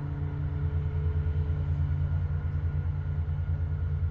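Steady low mechanical drone of a running motor or engine, with a fast, even throb and a few fixed humming tones above it.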